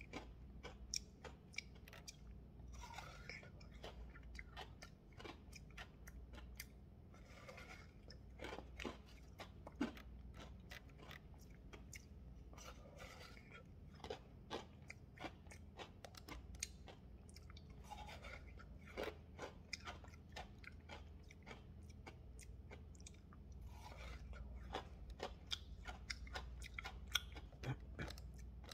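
Faint, close-up crunching and chewing of frozen slush ice eaten straight from a Polapo squeeze tube: many small irregular crunches and mouth clicks.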